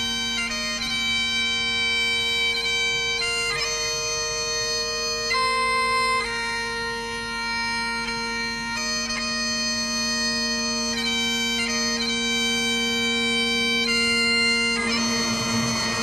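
Bagpipe music: a melody of held notes changing every second or so over two steady drone notes. About fifteen seconds in, the melody gives way to a noisier, fuller sound while the drones carry on.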